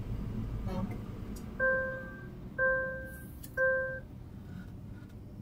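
Three electronic beeps of the same pitch, about a second apart, the last one shorter, over low road noise.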